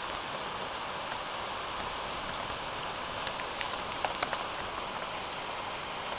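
Steady rain falling during a thunderstorm, with a few sharp ticks about three to four seconds in.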